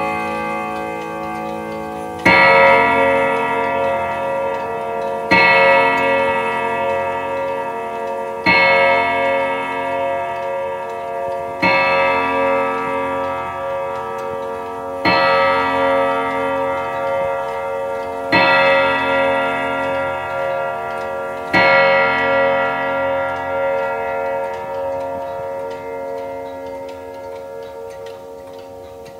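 Vedette wall clock striking seven o'clock: seven ringing strikes about three seconds apart, each left to ring out until the next. The last of the chime fades at the start, and after the seventh strike the ringing slowly dies away. The clock ticks underneath.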